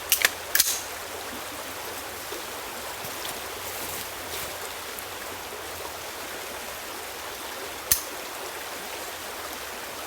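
Sharp mechanical clicks from handling a Colt M4 carbine that has not yet fired: three quick clicks in the first second and one more about eight seconds in, over a steady outdoor hiss.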